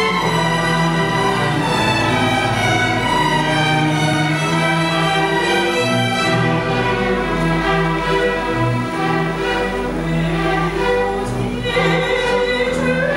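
String orchestra of violins and cellos playing a classical introduction in long sustained notes. Near the end a woman's operatic singing voice comes in over it.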